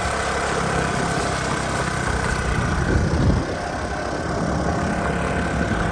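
Vehicle engine running steadily with a low rumble and a steady whine over it, on a rough off-road track.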